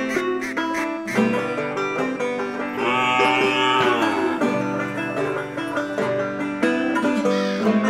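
Background music: a bright plucked-string tune in a country style, with a falling gliding tone about three seconds in.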